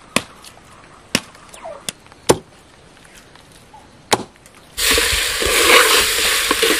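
A knife chopping raw chicken against a wooden log: five sharp chops, spaced irregularly, in the first four seconds. About five seconds in, chicken pieces start sizzling loudly as they fry in a clay pot, with a metal spoon stirring them.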